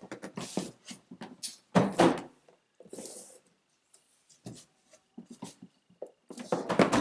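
Cardboard board-game boxes being handled on a wooden tabletop: a box is set down with a thump about two seconds in, with rustling and light knocks around it, and a louder burst of handling near the end as the next box is picked up.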